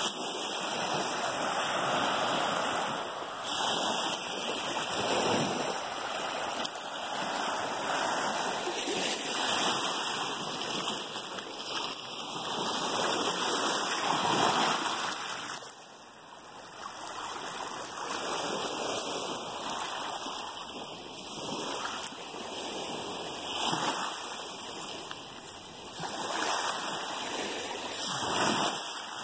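Small lake waves washing in over a pebbly shore: a steady hiss of surf that swells and eases every few seconds.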